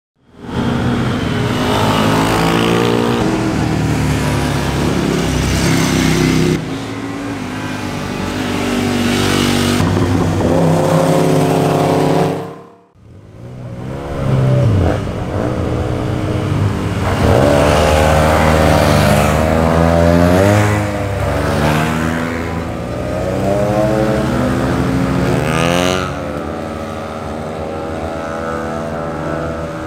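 Several maxi-scooter and motorcycle engines revving and accelerating away, their pitch rising and falling with the throttle. The sound drops out briefly about halfway through, then another run of engines starts up.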